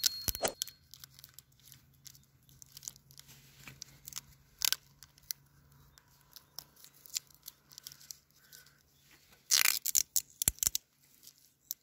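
Plastic film crinkling and rustling in the hands as it is wrapped around a grafted walnut branch, in scattered small crackles. A louder burst of crinkling comes near the end.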